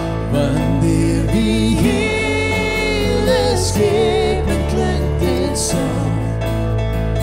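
A man and a woman sing a worship hymn together in Afrikaans, accompanied by acoustic guitar and keyboard.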